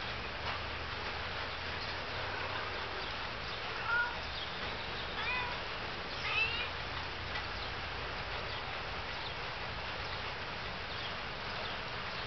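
A mother cat giving a few short meows: one about four seconds in, then two more soon after, the loudest around six seconds, with a steady hiss underneath.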